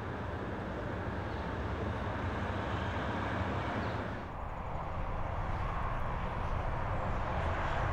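Steady rumble and road noise of heavy trucks, dipping briefly a little after four seconds in, then running on as highway traffic.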